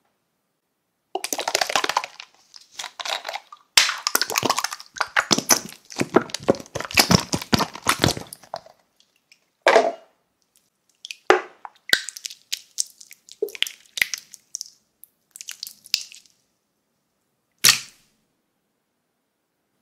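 Slime squeezed and squished between the hands, starting about a second in with several seconds of dense wet crackling and popping. This thins out into scattered single pops and clicks.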